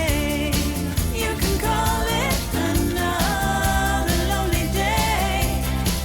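Background pop song with a sung vocal melody over a steady beat and bass.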